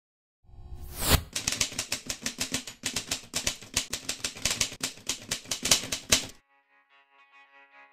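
Typewriter key sound effect: a fast, continuous run of key clacks with a louder hit about a second in, stopping abruptly after about six seconds. Faint music with a melody fades in near the end.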